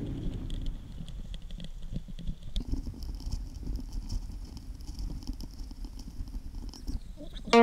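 Mountain bike rolling over rough, tussocky moorland grass: a low rumble with many small irregular knocks and rattles. A faint high whine steps up in pitch about two and a half seconds in.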